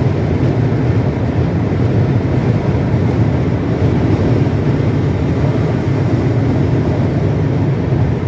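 Steady road and engine noise heard inside a car's cabin while driving on a highway, a constant low rumble with no sudden changes.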